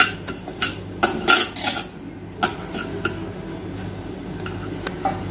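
Metal spoon scraping and knocking against a stainless-steel kadhai as seeds are stirred and scraped around the pan. There are several sharp scrapes in the first two and a half seconds, then quieter strokes, over a steady low hum.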